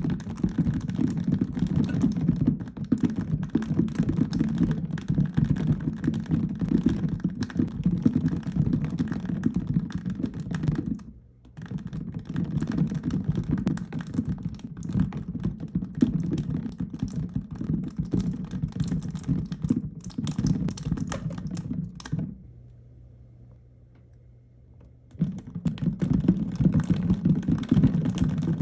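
Many small balls in a miniature toy ball pit clattering and rattling against each other in a continuous dense clicking as they are stirred. There is a brief pause about 11 s in, then a longer lull of about three seconds near the end before the clattering starts again.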